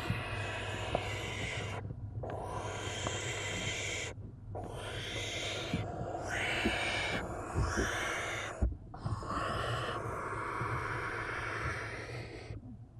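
Barn owl nestlings hissing at an intruding hand: a run of about six long, harsh hisses, each one to two seconds, with short breaks between them. It is the owlets' defensive hiss at being disturbed in the nest box.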